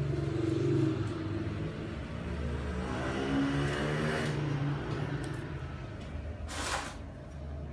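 A motor vehicle engine running with a low steady hum, its pitch swelling and then fading in the middle as it passes. A single sharp knock sounds near the end.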